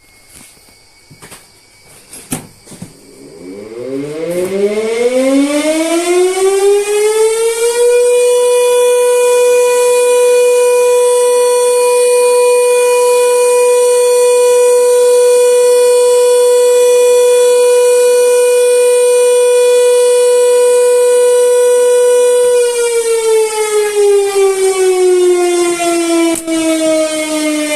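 High-power electric motor siren (hooter) of a hydroelectric plant, heard from the plant's control room. After a few clicks it winds up in a rising wail over about five seconds and holds one steady tone for about fifteen seconds. It then winds down with a slowly falling pitch.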